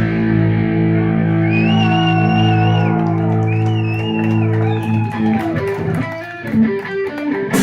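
Live thrash metal band closing out a song: a distorted electric guitar chord rings out under a wavering lead line with vibrato. About five seconds in the guitars break into choppy notes over a quick run of drum and cymbal hits, leading to a final crash at the end.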